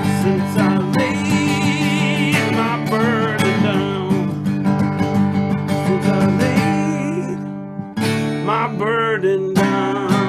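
Acoustic guitar strummed in steady chords, breaking off for a moment about eight seconds in before the strumming picks up again.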